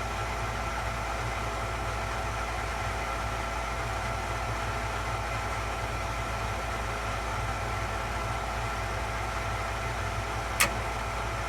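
Gas furnace's draft inducer motor running steadily with a faint whine during the ignition sequence, the igniter heating while the gas valve has yet to open. A single sharp click near the end.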